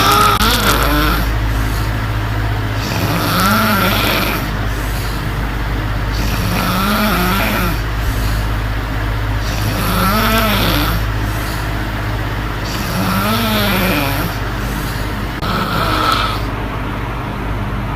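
A woman snoring in her sleep, six snores about three seconds apart, each a rising-then-falling drone of a second or so. Underneath runs the steady hum of an electric fan.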